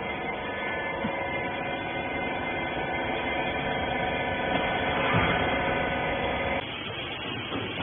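Hydraulic rag baler's pump and motor running with a steady hum. The hum cuts off suddenly about two-thirds of the way through, leaving a rougher noise.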